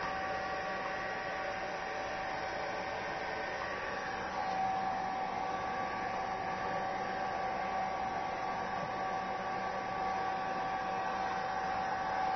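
Hair dryer blowing steadily, a steady rushing with a faint whine in it, getting slightly louder about four seconds in.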